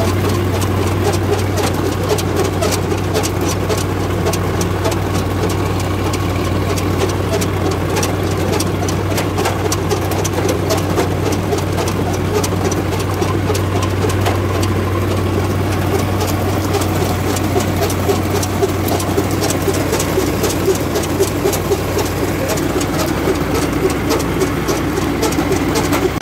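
Tractor engine running steadily while pulling a potato planter, with dense, irregular mechanical clicking and rattling over the low engine hum.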